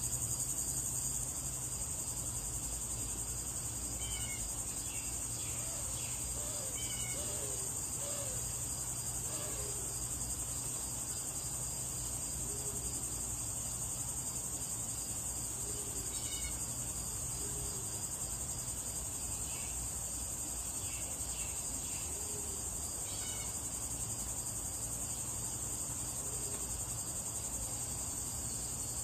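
Insects droning steadily at a high pitch, with scattered short chirps and a low steady hum underneath.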